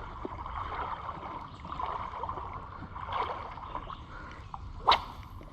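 Creek water gurgling and lapping, with one short sharp sound near the end.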